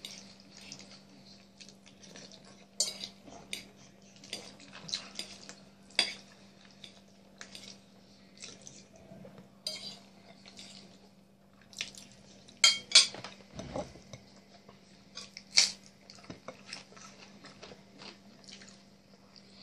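Metal fork clinking and scraping on a plate, in scattered sharp clicks with the loudest a few about two-thirds of the way through, amid quieter chewing and mouth noises. A steady low hum runs underneath.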